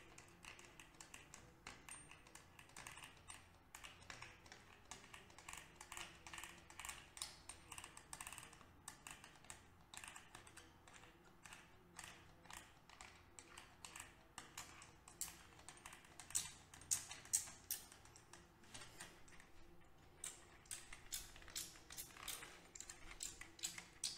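Faint, quick clicks of a hand-pump oil can as its lever is squeezed over and over, about two to three clicks a second, squirting oil onto transmission gears.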